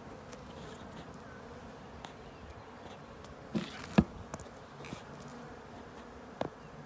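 Honeybees buzzing steadily around open hives, with a few brief knocks about three and a half seconds, four seconds and six seconds in.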